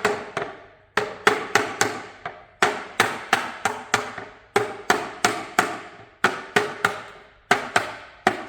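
Rubber mallet knocking phenolic plywood shelf panels onto their tenons, in quick runs of four or five sharp knocks with short pauses between them.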